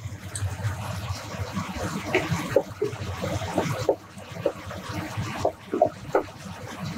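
Wooden spoon stirring stew in a stainless-steel pot, with many short, irregular light knocks and scrapes against the pot over a steady hiss.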